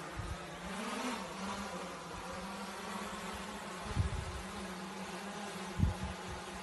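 Steady buzzing hum of a small camera drone's propellers, rising briefly in pitch about a second in. Two low thumps, at about four and six seconds, stand out above the hum.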